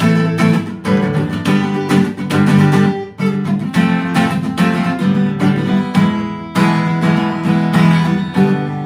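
Fender CD-60 V3 dreadnought acoustic guitar strummed in a steady rhythm, its chords ringing.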